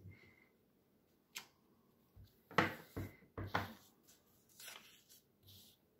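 Short taps and paper rustling as a clear acrylic stamp block is set down, pressed and lifted on cardstock over a cushioned mat, and the cardstock is shifted and turned. There is one sharp tap about a second and a half in, a cluster of knocks and rustles in the middle, and fainter handling near the end.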